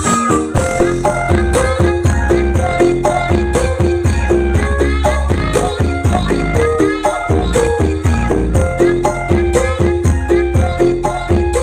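Music played loud through a large sound system during a sound check: heavy bass under a melody and quick shaker-like percussion at a steady beat.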